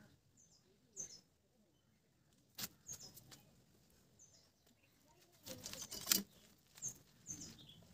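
Small birds chirping in short, high notes that fall in pitch, several times over. A few sharp knocks break in about two and a half seconds in, and a louder cluster of knocks comes around six seconds in.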